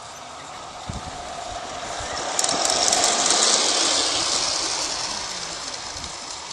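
Large-scale model train rolling past on outdoor track, its wheels clicking and rattling over the rails. The sound swells as the train comes close, peaks about three seconds in, then fades as it moves away round the curve.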